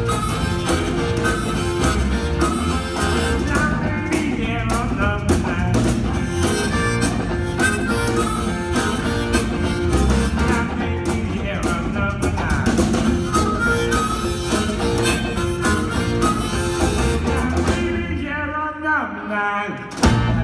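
Live electric blues band: an amplified harmonica solo, the harmonica cupped against a handheld vocal microphone, over electric bass, electric guitar and drum kit. Near the end the drums and cymbals drop out for about two seconds before the band comes back in.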